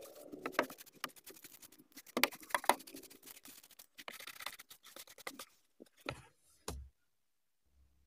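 Flat paintbrush bristles scrubbing a car's floor carpet, sweeping loose dirt onto a sheet of paper in quick, irregular scratchy strokes. The strokes stop a little before the end.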